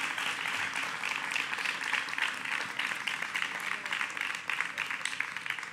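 Audience applauding: a dense patter of clapping that thins and fades out near the end.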